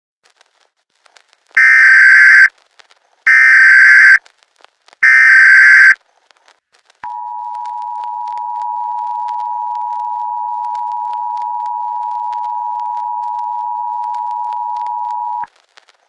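Emergency Alert System broadcast signal: three short, loud bursts of shrill SAME header data tones, then the steady two-tone EAS attention signal held for about eight seconds before it cuts off suddenly. It marks the start of an emergency alert, here a shelter-in-place warning.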